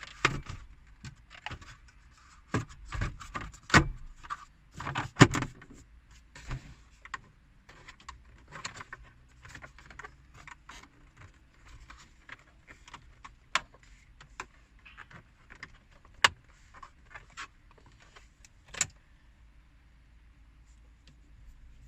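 Plastic clicks, knocks and light rattles of a Volvo S60's dashboard frame around the instrument cluster being pressed and fitted into place. They come thick and fast for the first six seconds, then thin out to single sharp clicks.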